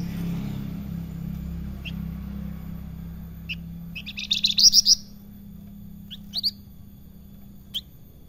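Caged flamboyan (salakan) songbird calling: scattered single sharp chirps, then a fast burst of about eight rising whistled notes about four seconds in, followed by a few more short notes. A low motorbike rumble underneath fades out about halfway.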